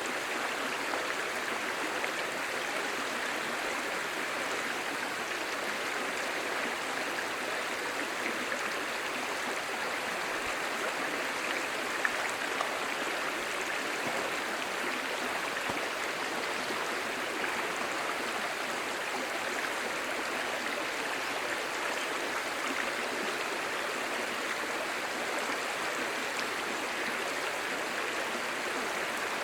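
A clear, shallow stream babbling over stones, a steady rushing and gurgling of water.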